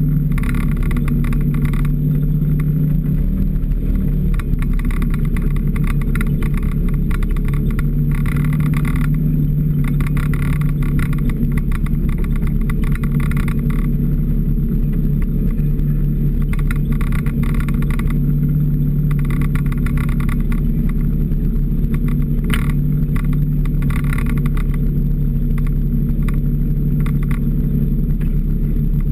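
Snowmobile engine running steadily at trail-cruising speed, a constant drone whose pitch shifts briefly about four seconds in. Patches of higher-pitched clatter come and go over it as the machine runs along the packed snow trail.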